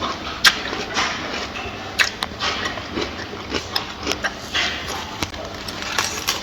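Gorilla chewing and crunching food, with irregular sharp snaps and crackles.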